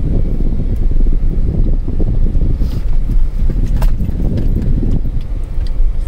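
Car driving on a rough dirt road, heard from inside the cabin: a steady low rumble of engine and tyres, with a few small knocks and rattles about three and four seconds in and near the end.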